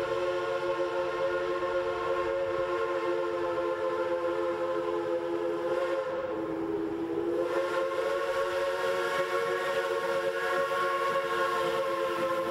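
Pennsylvania Railroad T-1's three-chime steam whistle blown in one long, held chord. About six seconds in, the chord briefly thins and sags lower in pitch, then comes back full and holds.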